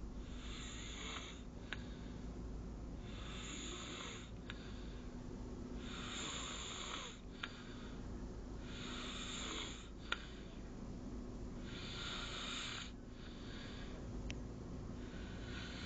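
Snoring in a slow, even rhythm: six hissing, rasping breaths about three seconds apart, each lasting about a second, with a few sharp little clicks between them.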